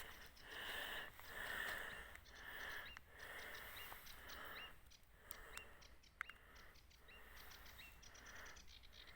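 Faint riverside night chorus: frogs croaking in repeated pulses, with birds giving short rising chirps. A rapid pulsed trill comes in near the end.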